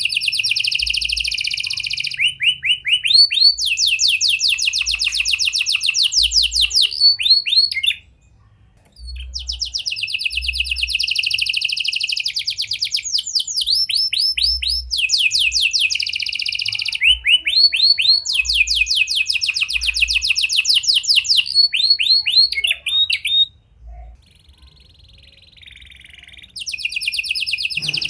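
Red-factor domestic canary singing long, loud phrases of fast repeated trills, with two short breaks. The song is a canary song filled with phrases (cengkok) taken from the prenjak (prinia) and the lovebird.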